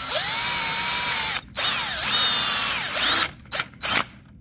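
DeWalt drill boring out glued-in plastic rivets, its motor whine rising and falling with the trigger. It runs in two long stretches with a short pause between, then gives two short bursts near the end.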